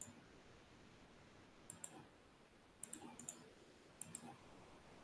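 Faint computer mouse clicks in pairs and small clusters, picking lines one after another for AutoCAD's chamfer command.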